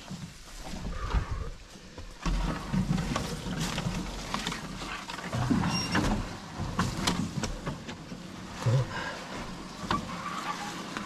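Footsteps crunching along a dirt forest trail, with heavy, grunting breaths of someone carrying a canoe overhead on a portage, and scattered knocks and brush sounds.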